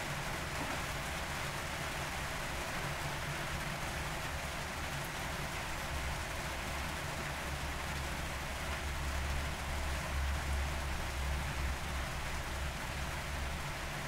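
Steady rain falling as a dense, even hiss of drops. A low rumble underneath grows stronger about halfway through and drops away near the end.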